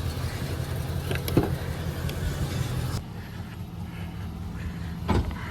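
Motor vehicle engine idling: a steady low hum with a few short clicks, changing abruptly about three seconds in.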